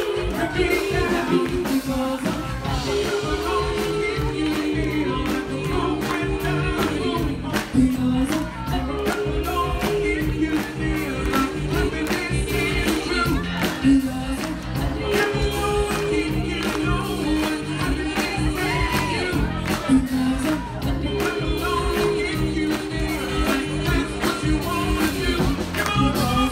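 Live band playing an upbeat dance song with a singer over a steady beat.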